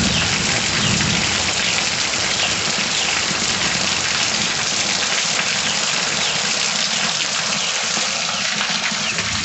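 Heavy rain falling steadily, a dense even hiss of rain and dripping water, as a low thunder rumble fades out in the first second or two.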